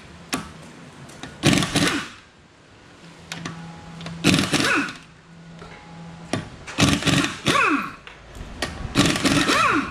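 Impact wrench undoing a car's wheel nuts in four short bursts of about a second or less each, its pitch falling as each burst ends.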